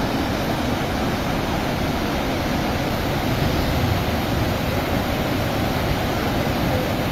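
Fast, muddy floodwater of a swollen river rushing past in a steady, unbroken roar.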